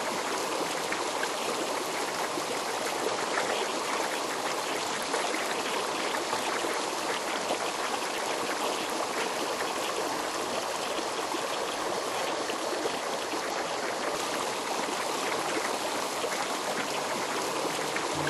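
Shallow stream flowing over stones: a steady, even rush of running water.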